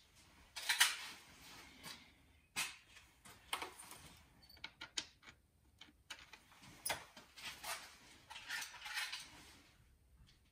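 Metal hand tools clinking, scraping and clicking in irregular short bursts, a light clatter of small metal parts being handled.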